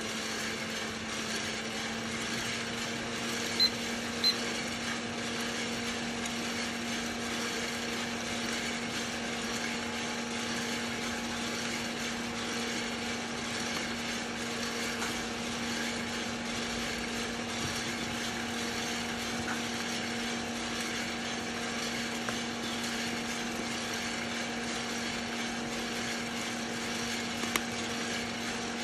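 Hottop drum coffee roaster running mid-roast: a steady motor and fan hum with a low tone, the beans tumbling in the rotating drum. Two sharp clicks come about three and a half seconds in, and another near the end.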